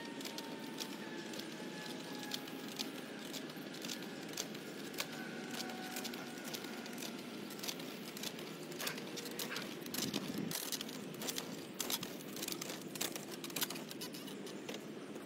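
Wheel hoe pushed through garden soil: crackling and scraping as its blade cuts through dirt and weeds, with many small clicks.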